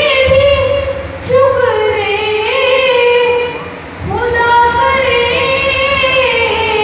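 A boy singing an Urdu devotional poem in praise of Ali (a manqabat) solo into a microphone, drawing out long wavering notes. He breaks off briefly for breath about a second in and again near four seconds in.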